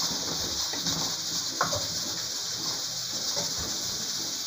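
Grated onion sizzling in oil in an aluminium saucepan, a steady hiss, with a wooden spoon knocking against the pan a couple of times as it is stirred and laid down.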